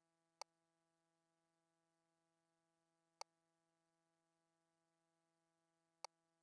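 Three short, sharp clicks about three seconds apart over a faint steady electrical hum, at near silence. They come from the ultrasound scanner's controls as its on-screen measurement calipers are set.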